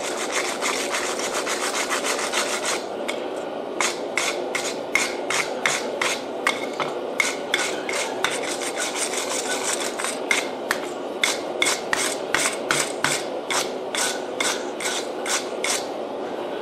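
A wire brush scrubs forge scale off a glowing-hot Damascus steel billet on the anvil, in quick back-and-forth strokes of about two or three a second.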